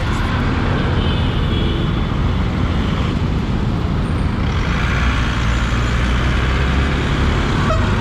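Motorcycle riding through dense city traffic: steady engine and road noise with vehicle horns honking around it.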